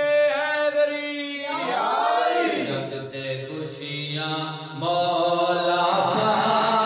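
A voice singing a devotional manqabat in long held notes, sliding through an ornamented run in the middle before settling on sustained notes again.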